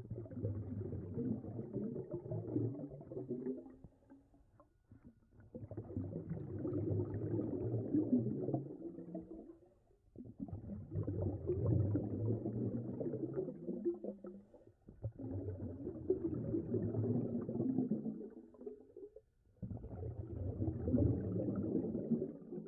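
Low rumbling, gurgling water sound that swells and fades five times, each swell lasting about three to four seconds.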